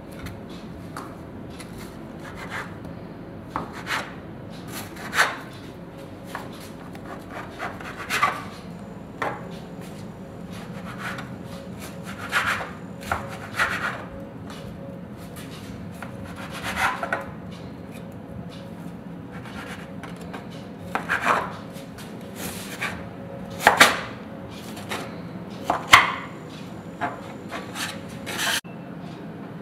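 A table knife scraping and cutting on a countertop, spreading apple jam over a sponge cake sheet and trimming its crusty edges: irregular short scrapes and cuts, some sharper than others, over a steady low hum.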